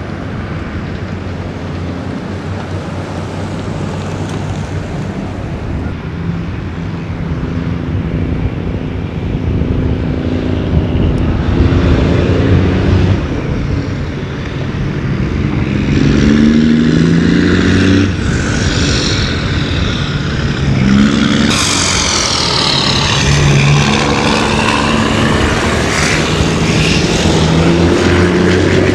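Heavy diesel construction machinery running, the engine pitch rising and falling again and again as it revs up and down under load, getting louder about halfway through.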